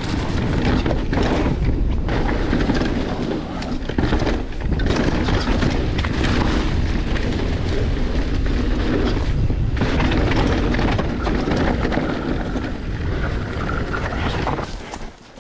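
Heavy wind buffeting on an action camera's microphone as a mountain bike rides fast down the trail, a steady loud rumble that drops away just before the end.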